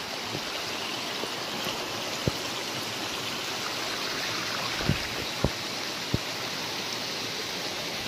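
Steady rushing of water flowing in shallow sheets over flat rock slabs at the top of a waterfall, with a few soft low knocks between about two and six seconds in.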